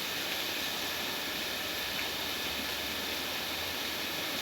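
Steady, even background hiss with a faint tick about two seconds in.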